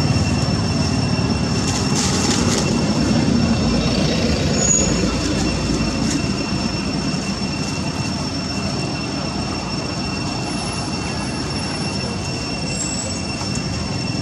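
A steady high-pitched insect drone holding one even pitch, over a constant low rumbling noise.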